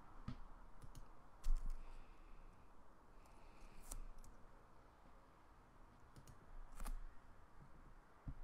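A few scattered light clicks, about eight at irregular intervals, from computer mouse and keyboard use over quiet room tone.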